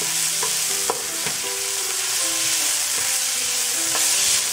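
Diced carrots, celery and peas sizzling in a frying pan over high heat while a spatula stirs them, with a few clicks of the spatula against the pan.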